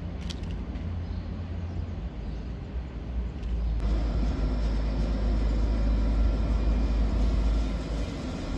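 Steady low rumble and hum from a standing Ouigo Series 108 double-deck high-speed train at the platform, growing louder about four seconds in.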